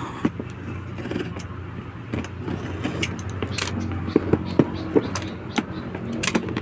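A package being handled and opened by hand: scattered clicks, crackles and rustles of packaging, over a steady low background hum.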